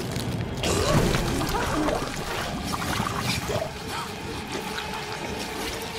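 Horror-film soundtrack: liquid pouring and splattering as a possessed character vomits. A steady droning tone comes in about halfway through.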